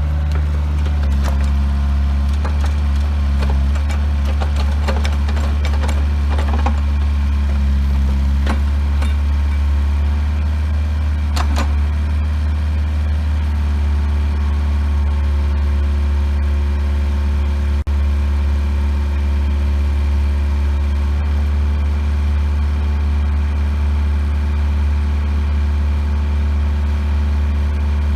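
Bobcat 430ZHS mini excavator's Kubota diesel engine running steadily, with scattered clanks and knocks during the first dozen seconds.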